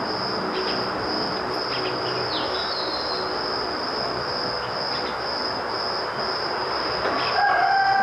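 Steady background ambience: an even hiss with a high, continuous drone running through it, and a few faint short chirps about two and a half seconds in.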